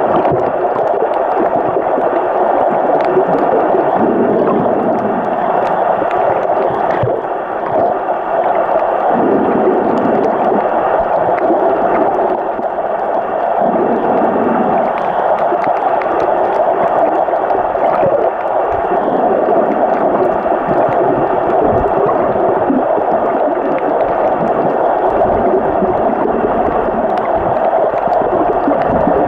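Steady underwater noise picked up by a camera in the water, with faint scattered clicks.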